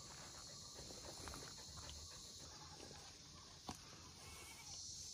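Very quiet: a steady high insect buzz, likely crickets, with faint scattered rustles and a single sharp click about three-quarters through.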